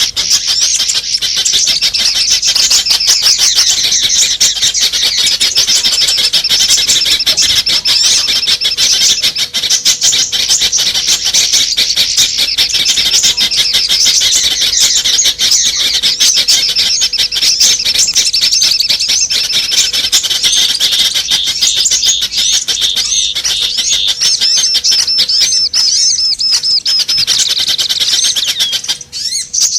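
Dense, unbroken twittering of small songbirds: many rapid, high chirps and trills overlapping, as in a bird-lure recording that mixes the calls of several small bird species. A faint steady hum runs underneath, and the chirping breaks off briefly near the end.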